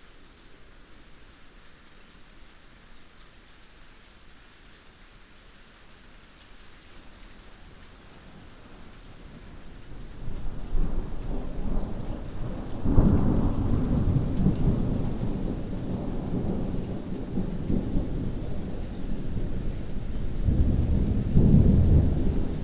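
Steady rain, then a long roll of thunder that builds from about halfway through into a low rumble with two loud peaks, the second near the end.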